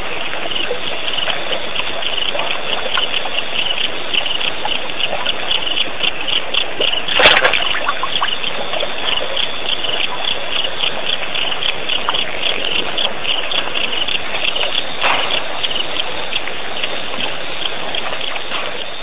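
Night waterhole ambience: a steady, dense chorus of frogs and insects calling rapidly, with water sounds. A single sudden loud burst breaks in about seven seconds in, and a weaker one comes near the end.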